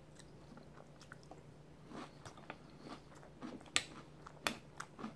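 A man chewing a mouthful of Boo Berry cereal with milk, with faint crunching that picks up about two seconds in. A couple of sharper clicks of a metal spoon against the bowl come past the middle.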